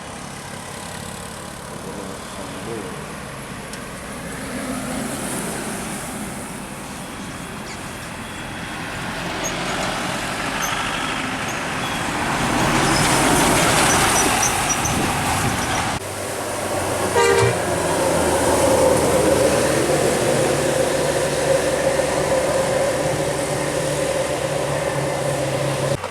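Indonesian tour buses passing: engine and road noise build to a loud pass about 13 seconds in. After an abrupt break, the bus's roof-mounted telolet air horns give a short toot and then hold a long steady note over the engine.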